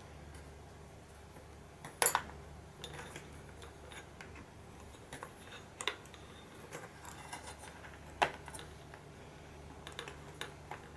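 Small metal fittings of a pickelhaube clicking and scraping as the metal cockade and chinstrap are put back on by hand. Sharp clicks come about two, six and eight seconds in, the first the loudest, with fainter ticks of handling between them over a faint low hum.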